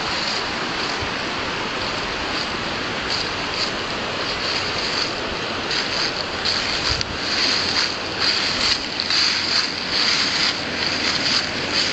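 Green River running over a shallow rocky bed: a steady rushing hiss of water.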